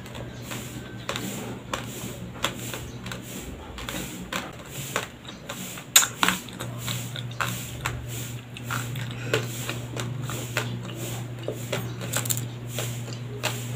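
Raw, uncooked white rice grains being chewed close to the microphone: a rapid, irregular series of crisp crunches and cracks, over a steady low hum.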